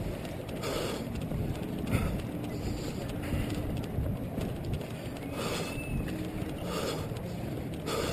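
Running heard through a head-mounted GoPro Hero 2 in its housing: a steady muffled rumble and rattle from the jostling camera and footfalls, with a short hiss coming back about every second and a half.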